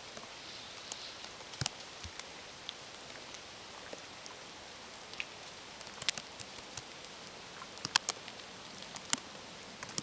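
Wet snow and drips pattering down through snowy trees: a faint steady hiss with scattered sharp ticks, several close together around six and eight seconds in.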